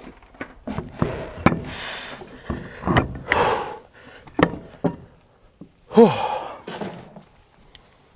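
Knocks and thunks of a heavy truck wheel and tire being manhandled onto the hub, with hard breathing from the strain. A short vocal sound comes about six seconds in.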